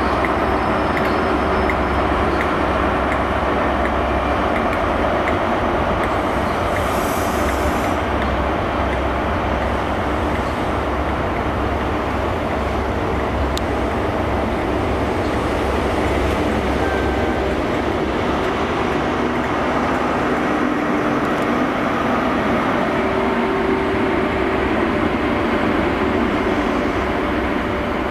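Great Western Railway High Speed Train moving past: the diesel engines of its Class 43 power cars rumble steadily under the running noise of the coaches' wheels on the rails.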